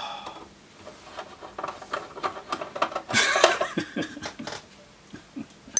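A man chuckling and laughing quietly to himself, mixed with a run of small clicks and taps from hands handling a DVR case.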